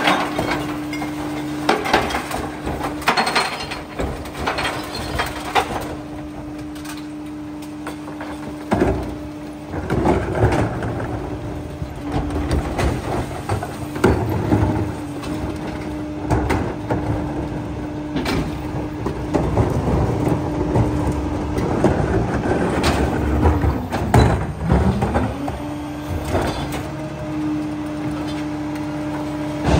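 Freightliner New Way rear loader garbage truck working: the engine and hydraulics run with a steady hum while the cart tippers lift and dump plastic recycling carts, with repeated bangs and knocks of the carts against the hopper. The packer blade cycles to pack the load. The hum dips in pitch and comes back once near the end.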